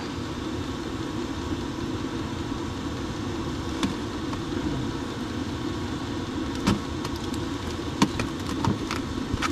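Ice-fishing tent heater running with a steady drone, and a few light clicks in the second half.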